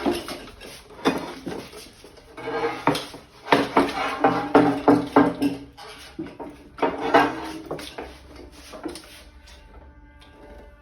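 Clattering and knocking of tools and small parts being handled and moved about on a work surface, with sharp knocks spread through the first eight seconds or so and fewer near the end.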